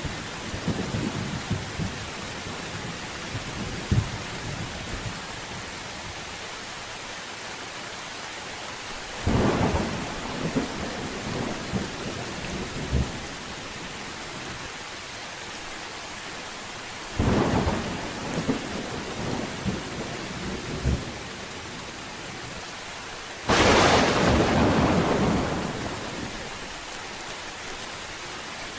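Steady rain with thunder. Three thunderclaps break in, each followed by rumbling; the last one is the loudest and rolls on for a couple of seconds. There is low rumbling at the start as well.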